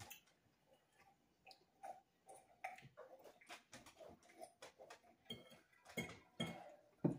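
Soft, irregular clicks and taps of a meal at the table: cutlery on plates.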